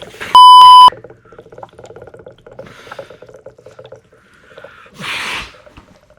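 A very loud electronic alarm beep, one half-second tone, over a low buzzing hum; about five seconds in, a short rush of water pouring and splashing onto a face from the alarm's tipped water tank.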